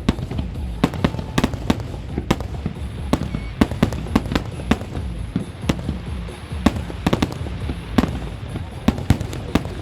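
Fireworks display: a rapid, irregular barrage of sharp bangs, several a second, over a steady low rumble.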